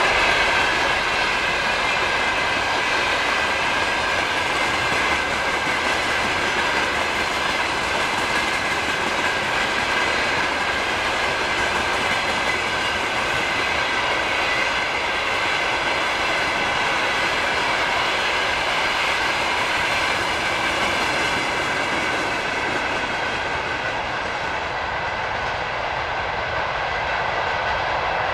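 Freight train's wagons rolling steadily past on the rails, their wheels clacking, with a steady high-pitched whine from the wheels.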